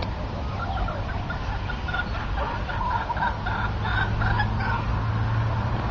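Chickens clucking: a run of short, quickly repeated clucks. A low steady hum comes in about three seconds in.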